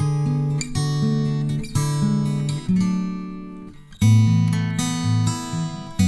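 Background music of an acoustic guitar strumming and picking chords. One chord dies away about three seconds in, and a louder strum follows about a second later.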